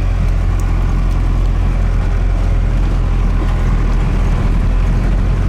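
Pickup truck's Cummins 4BT four-cylinder diesel engine running steadily as the truck drives a bumpy dirt road, a deep even drone.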